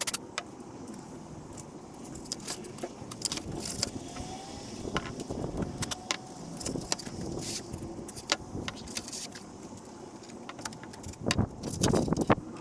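Irregular light clicks and clatter of small hard objects being handled, with a louder cluster of knocks near the end.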